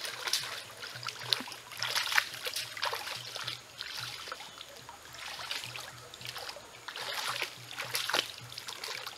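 Bare feet wading and splashing through a shallow, rocky stream, with irregular splashes over the trickle of the flowing water.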